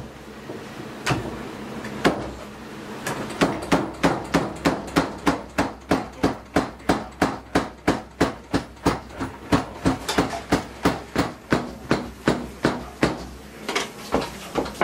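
Udon noodle-cutting knife, worked by hand on its guide, chopping down through folded sheets of udon dough onto the cutting board: a few separate chops, then a steady run of about four chops a second.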